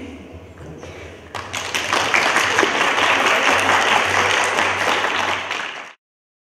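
Audience applauding, starting about a second and a half in and building, then cut off abruptly near the end.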